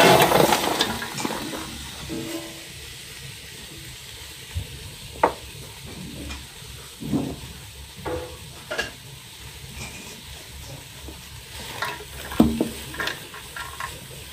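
Sliced onions poured into hot oil in a large aluminium pan: a loud burst of sizzling that dies down over a couple of seconds into a steady frying sizzle. Scattered knocks and clicks follow, with a slotted wooden spatula stirring the onions near the end.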